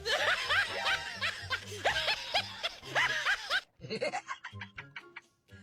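Snickering, chuckling laughter over music with a pulsing low beat, cutting off abruptly about two-thirds of the way in; then a few short clicks and taps.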